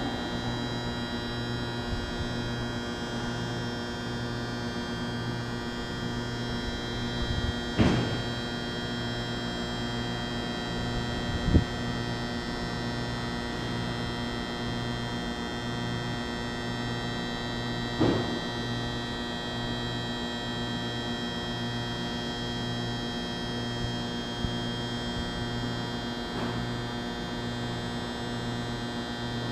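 Steady electrical hum made of several held tones, the lowest one pulsing evenly on and off, with a few brief thumps about 8, 12 and 18 seconds in.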